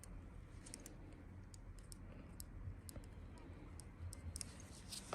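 Faint, irregular small clicks of a pedicure blade shaving thick, hardened callus on a cracked sole, over a low steady hum.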